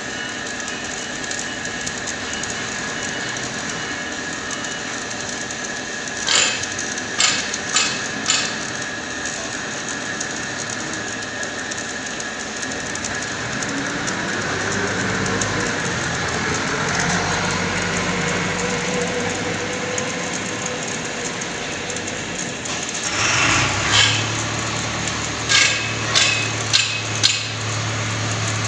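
Stick welding on steel: the arc's steady crackling hiss, with a few sharp knocks about six seconds in and again near the end. About halfway a motor hum rises in pitch and holds steady, and a low engine drone comes in over the last few seconds.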